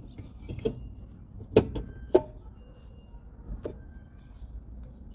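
A few sharp knocks and clicks of hand work on a car's rear drum brake, with the strongest pair about a second and a half and two seconds in.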